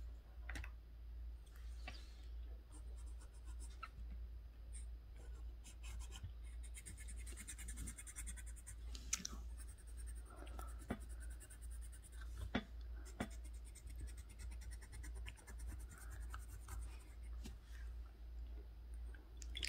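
Coloured pencil scratching across paper as an area is coloured in, faint, with a denser run of quick strokes about halfway through. A steady low hum lies underneath.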